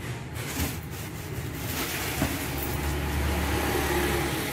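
Eastman 8-inch straight-knife fabric cutting machine running, a steady motor hum with a hiss over it that grows louder about two seconds in.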